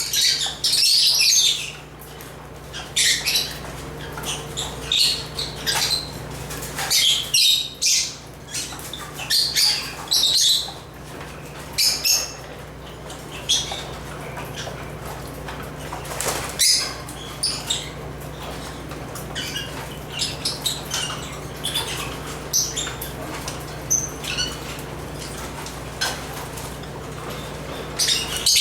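African lovebirds (Agapornis) chirping: quick runs of short, high-pitched chirps and squeaks that come and go in irregular bursts, busiest near the start and again about a quarter of the way through, with a steady low hum underneath.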